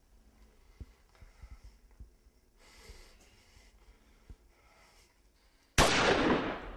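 A single handgun shot near the end, sudden and loud, dying away over about a second.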